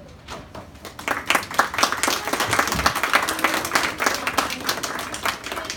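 Small audience of children and adults applauding. The clapping starts about a second in, is loudest in the middle, and thins out near the end.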